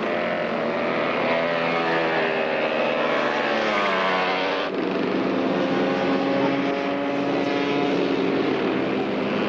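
Small go-kart engines buzzing as karts drive a track, the pitch climbing with the throttle over the first few seconds. About halfway through the sound changes abruptly to a steadier engine note.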